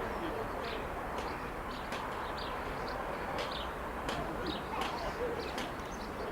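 Small birds chirping in short, scattered calls over a steady low background rumble of outdoor noise.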